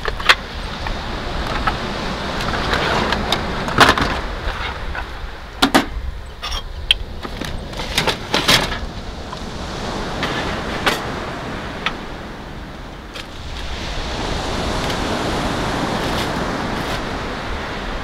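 Scattered knocks and clatter of metal camp cookware, a wooden cutting board and plastic containers being handled and set down on a Jeep's tailgate table. In the second half a steady rush of wind and surf takes over.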